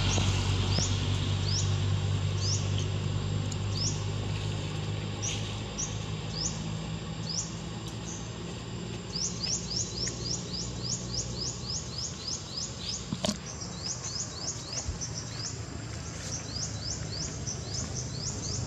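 A small bird chirping over and over in short high chirps, about one every half second at first, then quickening into a fast run from about nine seconds in. A low engine-like hum fades out in the first few seconds, and there is a single sharp click about thirteen seconds in.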